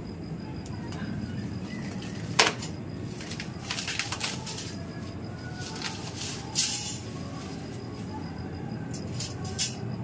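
Plastic wrapping rustling and crinkling as it is pulled off a nested set of black metal wire plant stands, with sharp crackles scattered through and light clinks of the wire frames being separated.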